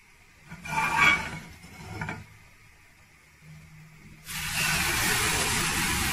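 A utensil clinks and scrapes against the nonstick frying pan twice, about one and two seconds in. About four seconds in, pancake batter is poured into the hot oiled pan and starts sizzling loudly and steadily.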